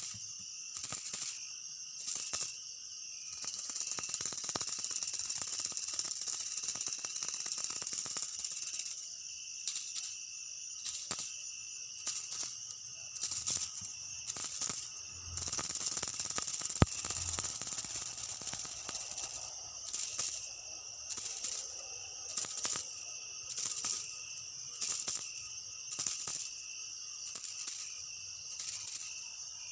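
Insects droning in a high-pitched chorus that pulses a little more than once a second, holding steady for a stretch in the early part and again in the middle. A single sharp click sounds about seventeen seconds in.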